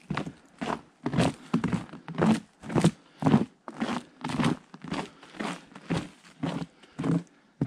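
Boots crunching in fresh snow on a wooden plank boardwalk: steady walking footsteps, about two a second.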